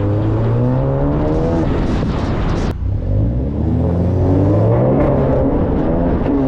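Volkswagen Jetta GLI's turbocharged 2.0-litre four-cylinder engine pulling hard under acceleration, its pitch rising, broken by a quick upshift a little under three seconds in. It climbs again, then falls away as the driver lifts near the end.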